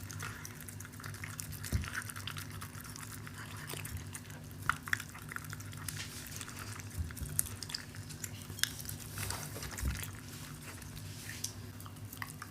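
Shiba Inu eating soft homemade food from a bowl: irregular wet chewing, licking and smacking clicks.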